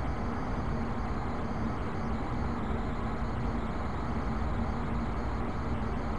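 Steady room noise: an even low rumble and hiss with a faint steady hum, unchanging throughout.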